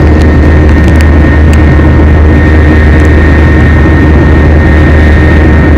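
Airliner cabin noise in flight: the jet engines and airflow make a steady, loud low drone, with a thin steady high tone above it.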